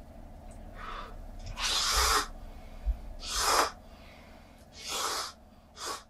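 Someone eating cup noodles: a series of short, breathy slurps, about one every second and a half, the loudest around two and three and a half seconds in.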